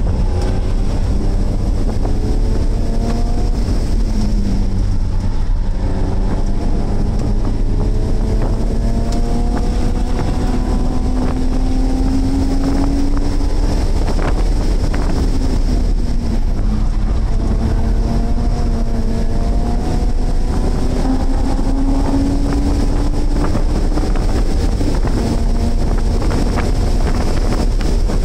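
BMW E46 3 Series track car's engine heard from inside the cabin at speed. The revs climb for several seconds at a time and drop back a few times, over a steady rush of wind and road noise.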